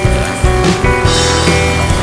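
Music with a steady beat and held melodic notes.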